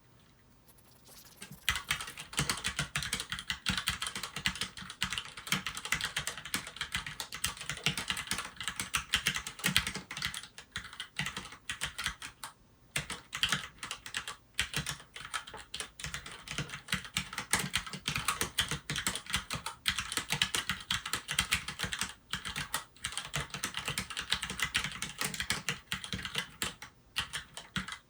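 Keychron K4 version 2 wireless mechanical keyboard with Gateron red linear switches being typed on in a fast, steady run of keystrokes, starting about two seconds in, with a couple of brief pauses.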